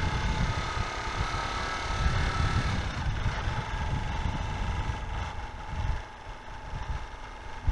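Motorcycle engine running while riding, with wind buffeting the microphone. A thin whine from the bike drops in pitch about three seconds in.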